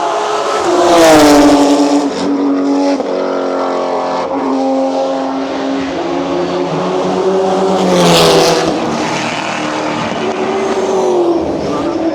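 Race cars passing at speed, their engine notes rising and falling as they change gear. The two loudest passes come about a second in and about eight seconds in, each dropping in pitch as the car goes by.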